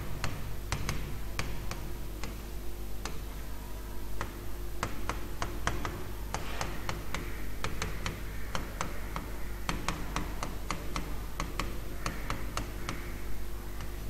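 Stylus tapping on a pen tablet while figures are handwritten: a run of irregular light clicks, several a second, over a steady low hum.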